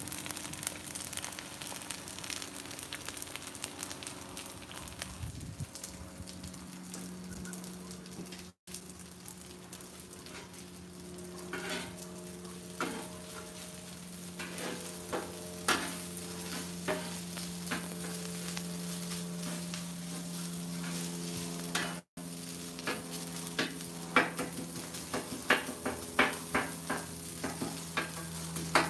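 Eggs and rice sizzling on a steel flat-top griddle. A metal spatula taps and scrapes on the griddle as it chops and turns the rice, the clicks starting about a third of the way in and coming quicker near the end.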